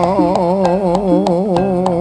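Live East Javanese jaranan music: a lead melody that wavers up and down in quick ornaments over a steady stream of sharp drum and metal percussion strokes.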